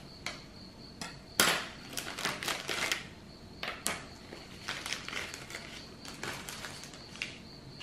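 Disposable wooden chopsticks and a plastic spoon being unwrapped and set down on a wooden table: scattered light knocks and clicks, the sharpest about a second and a half in, with paper and plastic wrappers rustling between them.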